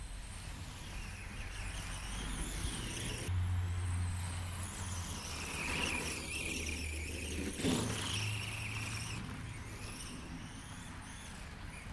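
Arrma Senton 4X4 RC truck's electric motor and gears whining, rising and falling in pitch with the throttle, as its tyres churn through snow; loudest as it passes close about eight seconds in.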